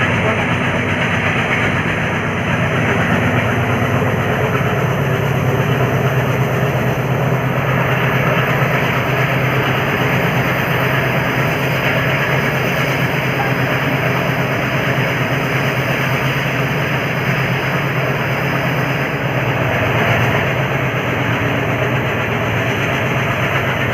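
Train hauled by a WDM3D diesel locomotive running steadily: a continuous loud rumble of rail and running noise over a steady low engine drone.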